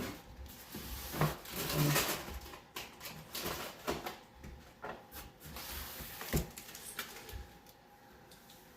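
Shipping box and its packing being handled and pulled open: irregular rustling and scraping with several sharp knocks, the loudest a bit past six seconds in.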